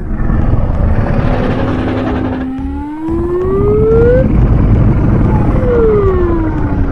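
Loud rushing whoosh with a siren-like tone that rises in pitch, breaks off about four seconds in, then falls again near the end.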